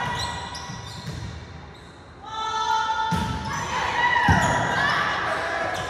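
Volleyball being played in a gym: two sharp ball hits, about three and four seconds in, among voices calling in the echoing hall.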